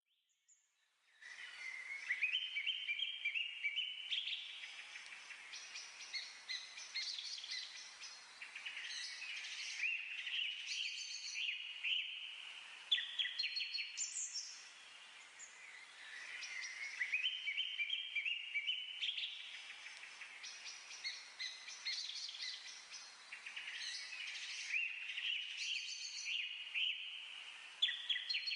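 Many birds chirping and singing together in a dense, high chorus of trills and tweets, starting about a second in. The same stretch of birdsong repeats about every fifteen seconds, as a looped ambience track.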